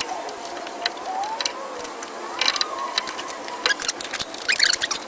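Irregular sharp metal clicks and clinks of hand tools and suspension parts being handled during work on a truck's rear suspension. A faint wavering tone slowly rises and falls underneath.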